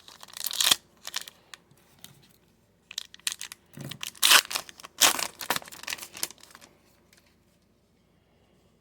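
Foil trading card pack wrapper crinkling and being torn open, in bursts of rustling that stop about seven seconds in.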